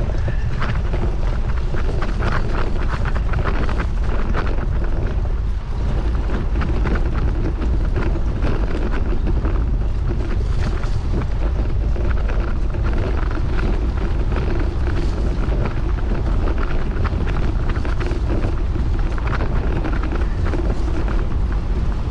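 Steady low rumble of a vehicle on the move, with wind buffeting the microphone throughout.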